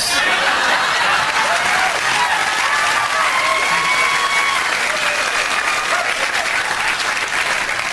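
Studio audience applauding steadily, with a few voices calling out within the crowd.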